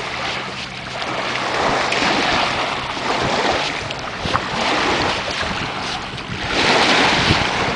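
Small lake waves washing onto a sandy shore, swelling and fading, loudest near the end, with wind buffeting the microphone.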